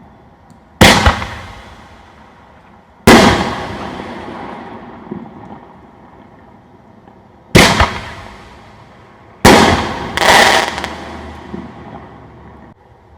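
Dynamite Death Shell 5-inch aerial firework shells going off: five loud booms, each followed by a rumbling tail that dies away over a second or two. The last two come close together, near the end.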